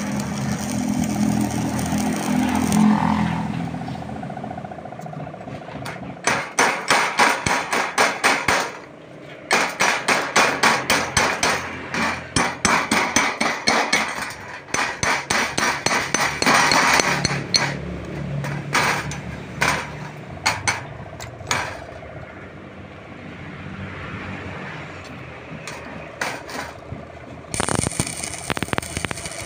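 Stick-welding arc crackling and hissing at the start, then a long run of rapid metal hammer blows on steel, several a second, lasting about ten seconds. Near the end the arc strikes up again with its steady crackle.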